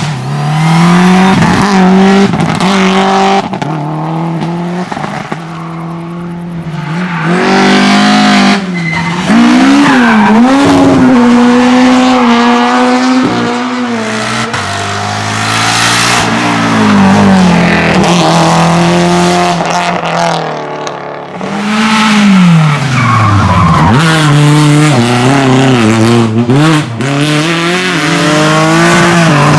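Rally car engine worked hard on a stage, rising in pitch as it revs and dropping sharply at gear changes and lift-offs, again and again. Tyres skid and squeal.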